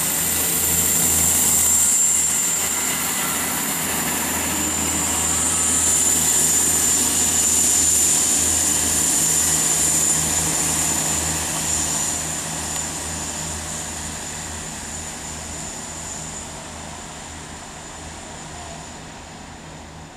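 South Western Railway Class 159 diesel multiple unit pulling away under power, its diesel engines throbbing under a high steady whine. It fades steadily as the train draws away down the line.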